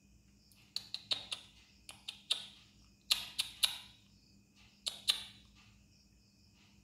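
Crickets chirping steadily in the background, overlaid by a series of sharp clicks and brief rustles in uneven clusters, which are the loudest sounds.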